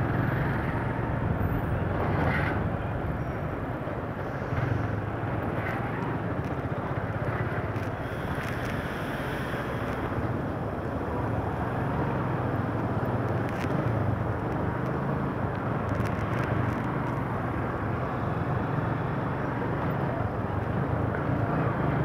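Motorcycle engine running steadily while riding in city traffic, mixed with a steady rush of wind and road noise.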